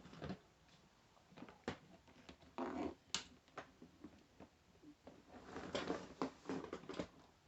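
Scattered light clicks, knocks and brief rustling as a portable manual typewriter is handled and set out to be shown.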